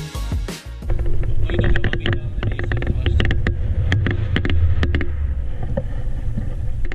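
Strong wind buffeting an action camera's microphone, a heavy steady rumble, with many short clicks and knocks over it.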